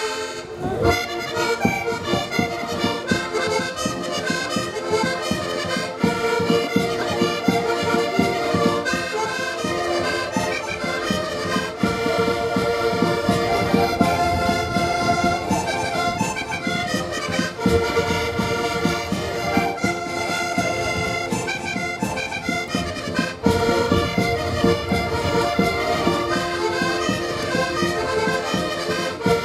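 A group of eight Portuguese concertinas (diatonic button accordions) playing a lively traditional tune together, with a steady beat.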